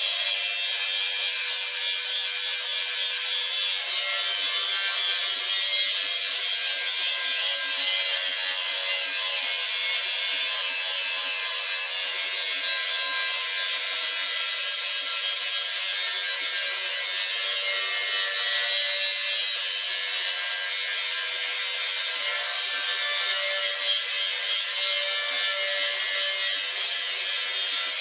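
Small electric angle grinder running steadily, its disc grinding the steel side of an old propane tank with a continuous, high-pitched hiss.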